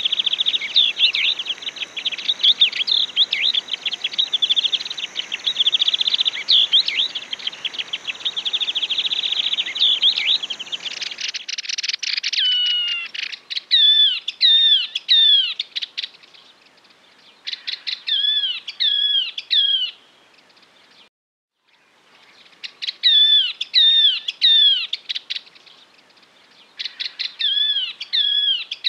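Yellow-eyed babblers singing. First comes a long run of rapid, chattering notes over a background hiss. From about eleven seconds in, clear falling whistled notes follow in four bursts of two to three seconds each, with short pauses between them.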